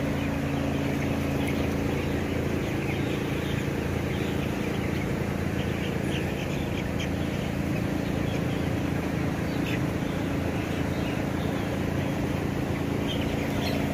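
A large flock of 16-day-old broiler chickens cheeping, with many short overlapping peeps, over the steady hum of the house's electric ventilation fans.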